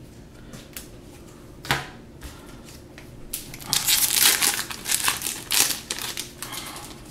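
A Magic: The Gathering booster pack's foil wrapper being torn open and crinkled as the cards are pulled out, a loud spell of crackling about three and a half seconds in. It is preceded by a single knock.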